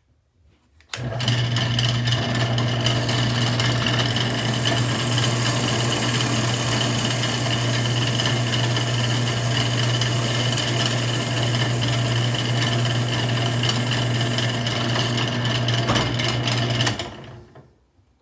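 Drill press switched on about a second in, its motor running with a steady hum while a 1/4 inch bit drills into the head of a stripped scope base screw; it is switched off near the end and winds down.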